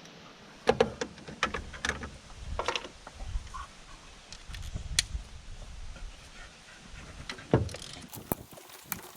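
Hand tools clinking and knocking against metal in an engine bay, a socket wrench being worked on a 10 mm nut, with scattered irregular clicks and a few sharper knocks.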